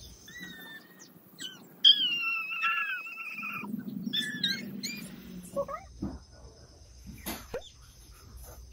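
Cats in a standoff: high-pitched cries with bending pitch, one held for about a second and a half, with a low growl under them about halfway through, then a few short knocks.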